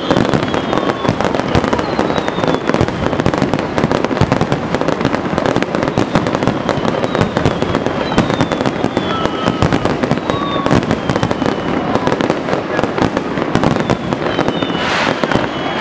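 Fireworks display at full barrage: a dense, unbroken run of shell bursts and crackling, with short falling whistles above it and a few louder bangs near the end.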